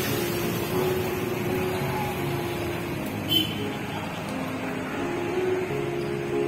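Steady road-traffic noise, with faint held tones that shift in pitch now and then.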